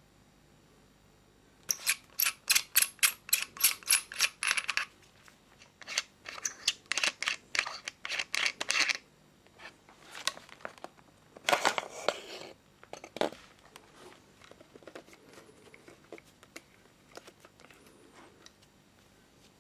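Rapid runs of sharp mechanical clicks, about four or five a second, in two bursts of a few seconds each. Then a short rattle, one louder click, and scattered faint ticks.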